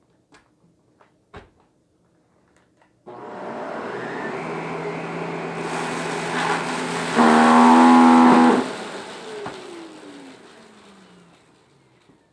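Shark vacuum cleaner switched on about three seconds in and running, with a steady hum under its rushing air noise. Around seven seconds in it grows much louder with a strong whine for about a second and a half, then it is switched off and the motor winds down, its pitch falling. A few light knocks come before it starts.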